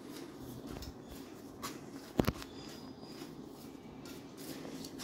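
Hand mixing dry flour in a stainless steel bowl: faint rustling and scraping with scattered light taps, and a sharper double knock about two seconds in.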